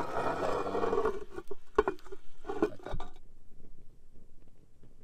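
Cast-iron Dutch oven lid, loaded with hot coals, being set back on the pot: a grating metal-on-metal scrape, then a few sharp clanks about two and three seconds in as it seats on the rim.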